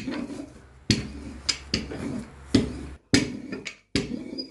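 Wooden handled rolling pin rolled back and forth over thin dough on a wooden board: a low rolling rumble broken by sharp wooden clacks, about eight of them at uneven spacing.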